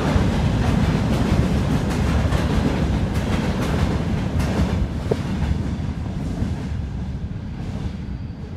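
The tail of a freight train of open gondola wagons rolling past, a steady rumble with the wheels clacking over the rail joints. A short squeak comes about five seconds in, and the sound fades as the last wagon moves away.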